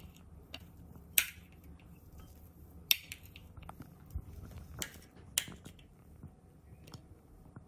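A metal spoon clinking and scraping on a plate and a glass bowl as chopped capsicum is moved into the bowl: a few sharp clinks, spread a second or two apart.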